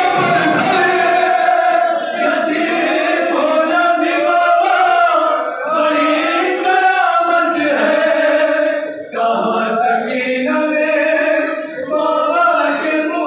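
A group of men chanting an Urdu noha (Shia mourning lament) in unison without instruments, the lead reciters singing into microphones with the others joining in chorus, with one short break about nine seconds in.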